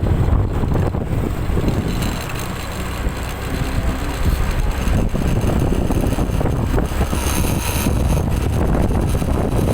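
Road vehicle rumble, engine and tyre noise, with wind buffeting the microphone; a brighter hiss swells briefly about seven to eight seconds in.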